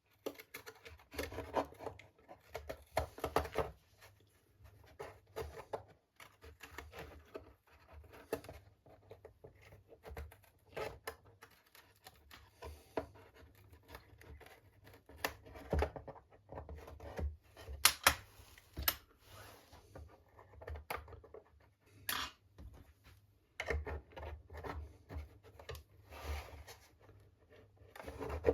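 Irregular scraping, snipping and small knocks of hand work on model boat parts, as material is shaved and cut away to fit the prop shaft, with a few sharper clicks about two-thirds of the way through.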